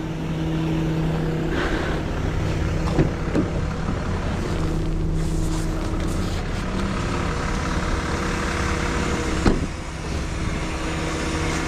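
Tow truck engine idling steadily, with a sharp knock about nine and a half seconds in.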